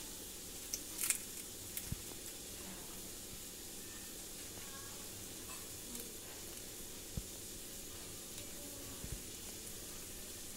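Faint steady hiss with a few soft, scattered crackles as dry, charred turmeric leaves are peeled open by hand from cooked fish.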